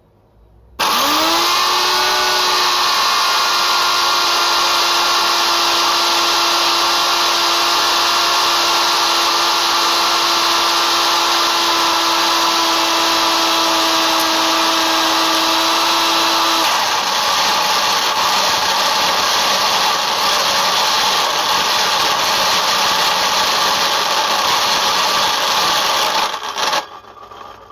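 Mitre saw's brushed electric motor, its cooling fan smashed and bearing damaged, switched on and spinning up to a loud steady whine. A little past halfway the steady tone breaks into a rougher, noisier sound as the unbalanced, overheating motor destroys itself, smoking, and it cuts out near the end.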